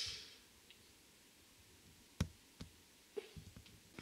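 Near quiet with a few faint, sharp clicks: two single clicks about half a second apart past the middle, then a short cluster of lighter ticks near the end. A soft hiss fades out at the very start.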